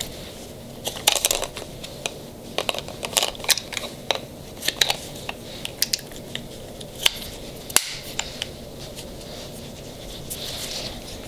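Small plastic clicks and scrapes from the grip of a Planet Eclipse Etha 2 paintball marker as its battery is pried out of the bottom of the grip, with one sharper click a little before eight seconds in.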